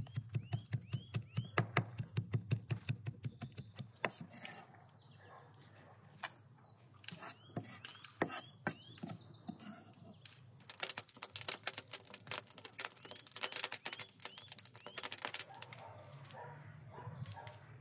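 Cleaver chopping fresh dill and greens on a wooden cutting board in quick strokes, about five a second. The strokes come in two runs, one at the start and a longer one about two-thirds of the way in, with a few slower cuts between. Small birds chirp in the background.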